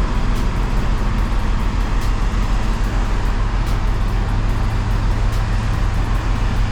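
Heavy construction compactor running steadily with a deep, even hum, heavy enough to make the ground shake.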